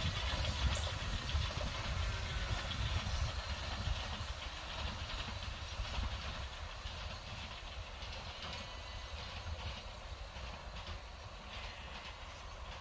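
Narrow-gauge steam train running past at a distance, a low rumble from the locomotive and coaches that fades steadily as the train moves away.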